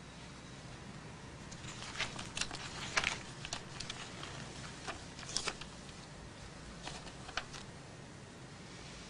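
Quiet room with a scattering of short paper rustles and light clicks, from about two seconds in until near the end, as printed presentation pages are handled.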